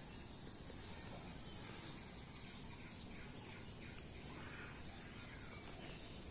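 Insects droning steadily in a constant high pitch.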